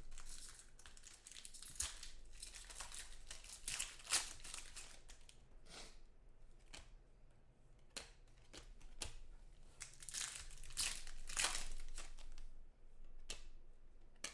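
Foil wrapper of a Topps Chrome football card pack crinkling and tearing as it is ripped open by hand, then cards rustling and clicking as they are thumbed through. The crinkling comes in irregular bursts, densest in the first few seconds and again about ten seconds in.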